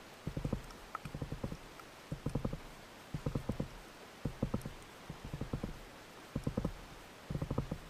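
Underwater spearfishing fish caller (richiamo) giving short bursts of rapid low clicks, about one burst a second, used to draw fish in close.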